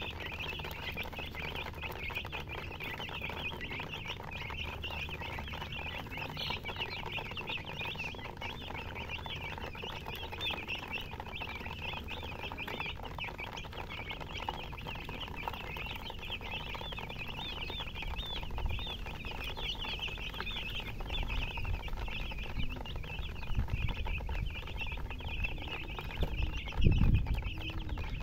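A brood of baby chicks peeping together, a dense, continuous chorus of short high chirps. A low thump near the end is the loudest moment.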